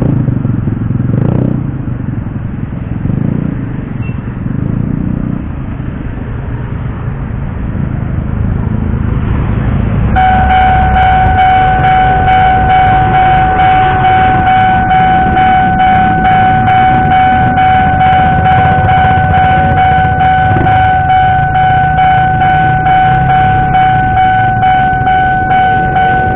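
Motorbike engines passing over a railway level crossing. About ten seconds in, the crossing's electronic warning alarm starts with a steady high tone and a regular pulsing beat, signalling an approaching train as the barriers come down.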